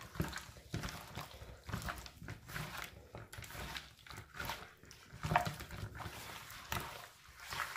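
Irregular wet squelching and slapping of raw chicken wings being kneaded and turned by gloved hands in a bowl of egg-and-soy-sauce marinade.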